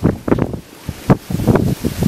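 Tropical-storm wind gusting hard across the camera's microphone: a rough, irregular buffeting with several strong blasts in quick succession.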